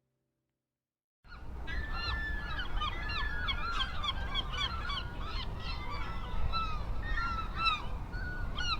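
Gulls calling, many short falling cries overlapping one another over a steady low rumble; it starts suddenly about a second in.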